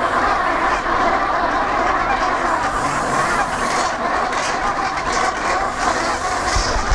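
Dense, steady wash of noise from a field-recording noise set, strongest in the mid range, with flickering crackle above it.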